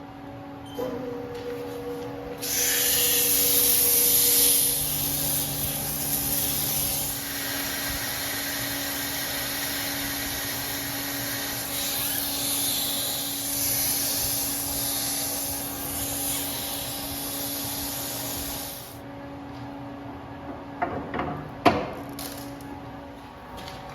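Steel bar spinning in a lathe, polished with abrasive: a loud, steady hiss of abrasive rubbing the metal starts about two seconds in and stops about five seconds before the end, over the lathe's steady hum.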